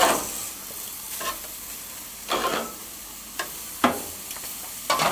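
Steaks sizzling steadily on a hot gas-grill sear zone while they are flipped with metal tongs. Several short, sharp, louder bursts break through as the tongs clack and each steak is turned back onto the grate.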